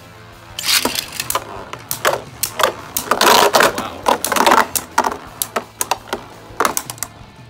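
Two Beyblade Burst spinning tops, one a 3D-printed custom, whirring in a plastic stadium and clashing. The clashes are a rapid run of sharp clacks and rattles that starts under a second in and is densest around the middle.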